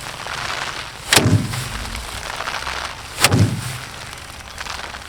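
A bundle of cut rice stalks beaten against a drum to thresh the grain: two hard strikes about two seconds apart, each with a short hollow ring, and the straw rustling as it is swung between them.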